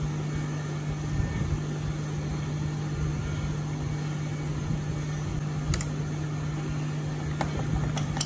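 A steady low hum, with a few faint metallic clicks in the second half as a new motorcycle drive chain and its connecting link are worked by hand and pliers.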